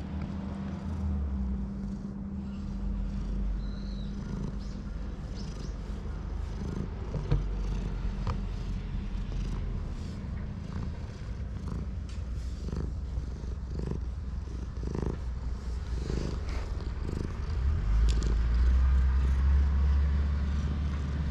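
Ginger-and-white cat purring steadily close to the microphone as it is stroked, the purr growing louder near the end, with a few faint clicks over it.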